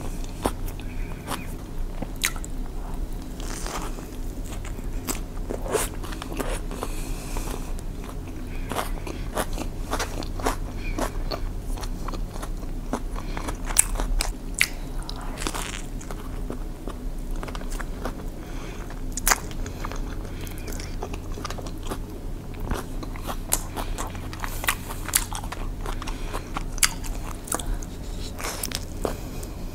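Close-up biting and chewing of a toasted sandwich: irregular crunches and wet mouth clicks picked up by a clip-on microphone at the eater's chest, over a steady low hum.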